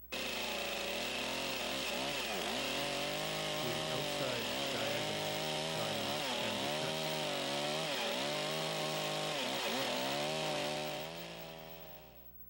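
Chainsaw cutting through a squared log, its engine pitch dipping again and again as the chain bites under load. It starts abruptly and fades away near the end, leaving a freshly sawn angled end on the log.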